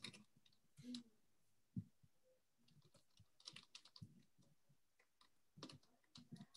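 Faint typing on a computer keyboard: irregular key clicks, as an email address is typed into a chat.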